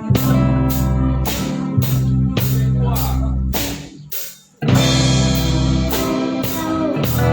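A band playing rock-style music: drum kit keeping a regular beat on the cymbals over bass and guitar. The music almost stops for a moment about four seconds in, then comes straight back in full.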